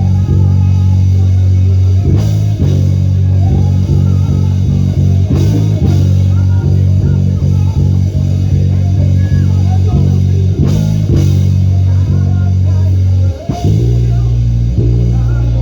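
Live church band music led by a prominent electric bass guitar holding low notes, with guitar and a drum kit keeping a steady beat.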